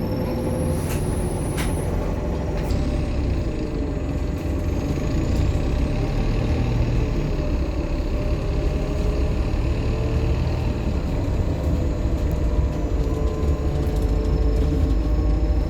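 Optare Solo M880 bus driving with its diesel engine and road drone steady underneath, and a faint high turbo whine gliding slowly up and down in pitch. Two sharp clicks sound about a second in.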